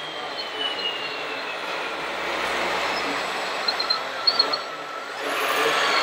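Radio-controlled model wheel loader driving and working in sand, its electric drive and gears whining in a high tone that slowly falls in pitch, then surging louder about five seconds in.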